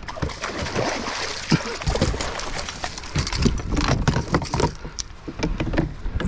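Water splashing and sloshing around a fishing kayak, with many short knocks and clicks of rod, reel and gear against the hull, as a hooked striped bass is fought and reeled in.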